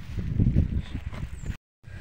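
Wind buffeting the camera microphone: a low, irregular rumble, broken by a moment of dead silence about one and a half seconds in.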